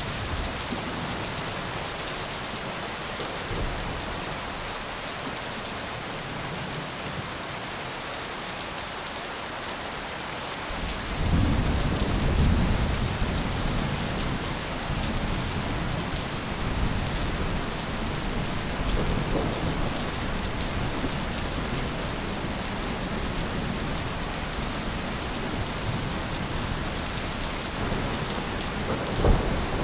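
Thunderstorm: steady heavy rain throughout, with a long low rumble of thunder rolling in about a third of the way through and fading over several seconds. A short loud crack comes near the end.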